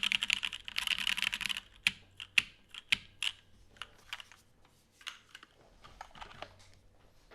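Custom mechanical keyboard with an aluminium plate, stock unlubed Popu switches and GMK keycaps being typed on: fast continuous typing for about a second and a half, then single keystrokes struck one at a time, a few of them loud, becoming fainter and sparser toward the end.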